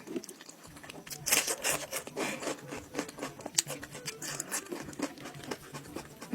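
Close-miked eating sounds: goat-head meat being pulled apart and chewed, a dense run of irregular sharp clicks and smacks, loudest about a second and a half in.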